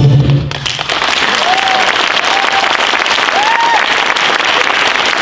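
Backing music cuts off about half a second in, then an audience applauding, with a few short vocal calls in the first few seconds of the clapping.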